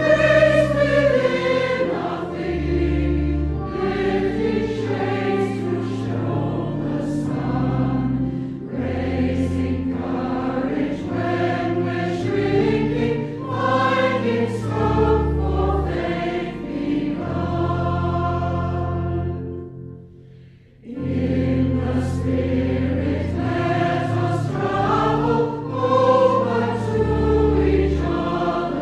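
Congregation singing a slow, contemplative hymn together over sustained instrumental accompaniment, with a short break between phrases about two-thirds of the way through.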